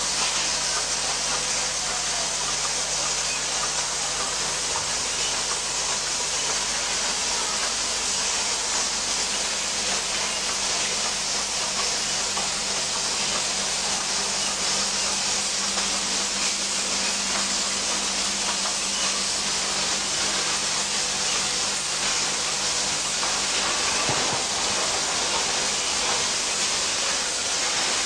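Steady hiss and hum of automatic syringe assembly machinery running on a factory floor, an even noise with a faint steady hum underneath.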